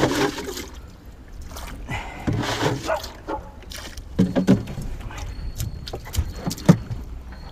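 Bailing a small wooden boat with a plastic jug: the jug scoops and scrapes in the water on the boat's bottom and the water is tossed overboard with a splash, a few times over, then a sharp knock near the end.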